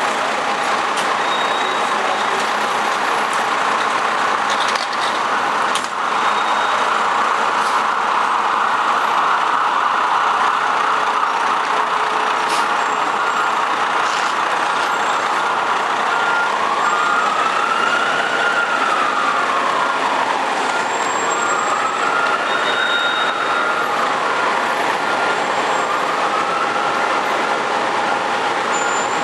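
Fire engine running amid steady city traffic noise. From about halfway on, a siren wails up and down in slow sweeps, three times.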